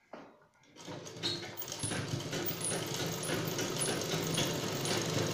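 Domestic sewing machine stitching fabric. There is a click at the start; about a second in the machine gets going and runs steadily with a fast, even rattle.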